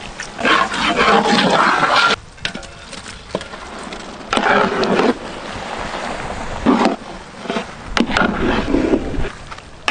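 Boiled noodles being tipped into a large metal pot of thick masala and mixed in: several bursts of wet, squelching handling noise with a few sharp clicks.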